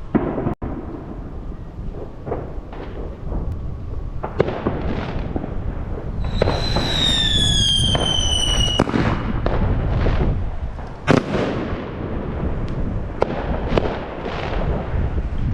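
Fireworks going off: a string of sharp bangs over a steady rumble, the loudest bang about eleven seconds in, and a whistle sliding down in pitch for a few seconds around the middle.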